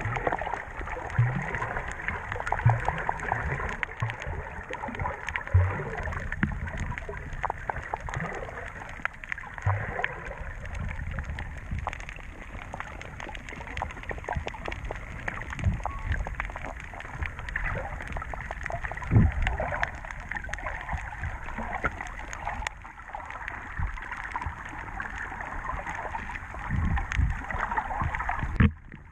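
Underwater sound of a GoPro Session camera moving through shallow seawater: steady sloshing and gurgling with many small crackling clicks and a few dull low thumps scattered throughout.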